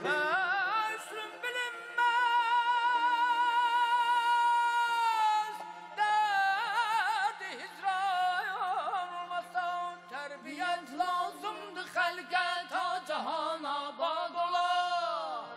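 Azerbaijani mugham singing by a male voice: a long high note held for about three seconds, then fast trilled, yodel-like tahrir ornaments running up and down. A low steady drone comes in about five seconds in.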